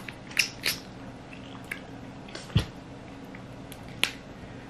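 Snow crab being eaten up close: wet mouth and chewing sounds with a few sharp snaps of crab shell breaking, the loudest about two and a half seconds in.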